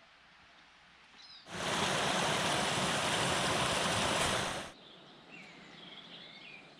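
Small woodland stream tumbling down a rocky cascade: a steady rush of water that cuts in abruptly about a second and a half in and stops just as abruptly about three seconds later. Birds sing faintly before and after it.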